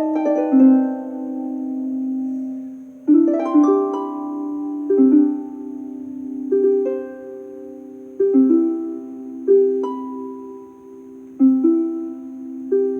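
Slow plucked-string music with a harp-like sound: single notes and chords struck every second or two and left to ring and fade.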